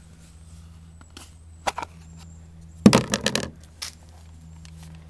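A plastic tub of polishing compound being handled: a couple of sharp clicks, then a short clattering rattle about three seconds in, over a steady low hum.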